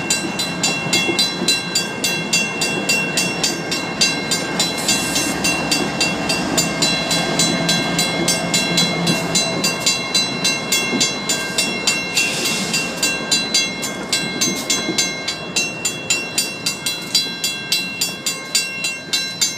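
WCH mechanical crossing-signal bell ringing steadily, about three strokes a second, over the low rumble of BNSF diesel locomotives moving slowly through the crossing. There is a short hiss twice, about five and twelve seconds in.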